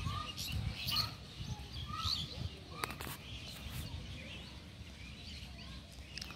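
Birds calling in farmland: a short arched note repeated about once a second for the first couple of seconds, with scattered higher chirps, over a low rumble. A couple of sharp clicks about three seconds in.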